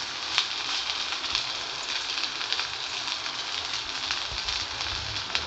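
Pieces of alu vadi (colocasia leaf rolls) shallow-frying in oil on a hot tawa, sizzling steadily with small scattered crackles.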